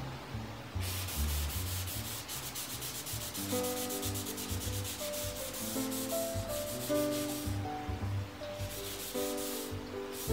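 A tissue rubbing along a steel sword blade in quick back-and-forth strokes, wiping on a coat of sword oil. Soft background music with held notes comes in about a third of the way through.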